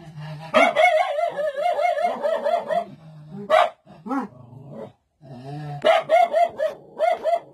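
An animal howling in long, quickly wavering cries, with a few short yelps between them.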